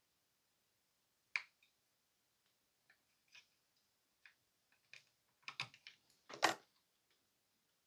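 Faint, scattered small clicks and taps of steel hemostat forceps working a resistor into place on a circuit board, with a louder quick flurry of clicks near the end.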